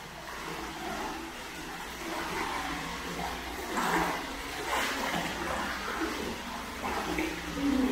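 Hot spring bath water sloshing and splashing as hands stir it, over steady running water, with a couple of louder splashes about halfway through.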